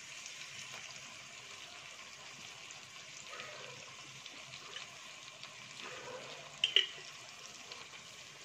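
Onion-tomato masala frying gently in a steel kadai over a gas flame, a soft steady sizzle, as chili sauce is poured in. A brief sharp clink comes about two-thirds of the way through.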